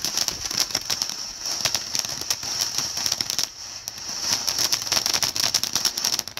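Ground fountain firework spraying sparks: a steady hiss with dense, rapid crackling. It dips briefly about three and a half seconds in and cuts off sharply near the end.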